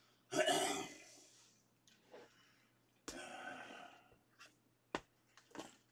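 A person's heavy breaths or sighs, twice, with a few sharp clicks of handling in between.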